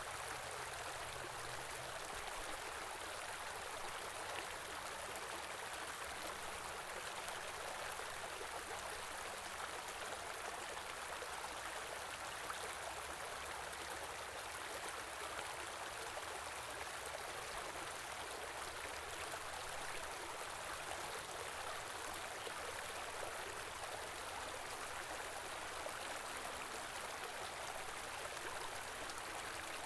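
Small stream in winter, water flowing and babbling over stones in a steady rush with no change.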